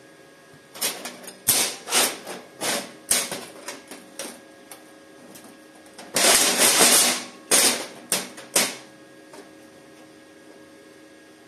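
Parkside PIFDS 120 B2 flux-core wire welder's arc on thin 2 mm steel sheet, striking in a string of short sputtering bursts, then running steadily for about a second and a half, then a few more short strikes.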